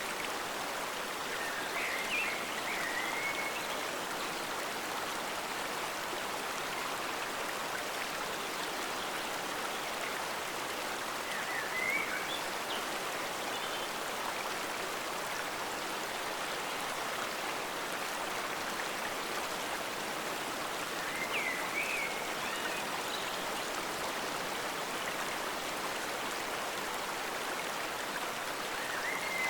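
Forest stream flowing in a steady, even rush of water. A short, high chirp cuts through it four times, about every ten seconds.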